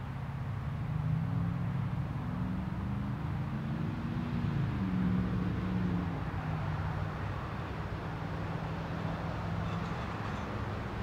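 Engine hum of a passing motor vehicle: a low drone whose pitch rises and then drops about five seconds in, settling into a steady low hum.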